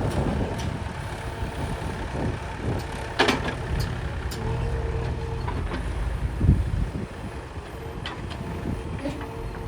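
Heavy diesel machinery engine running steadily, with a sharp metallic knock about three seconds in and a low thump near six and a half seconds.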